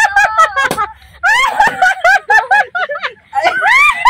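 High-pitched laughter in quick repeated bursts, with two short pauses.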